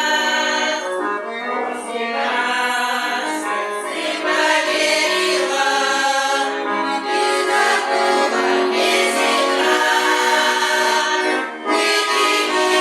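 A folk ensemble performing a song: accordion playing with a group of voices singing.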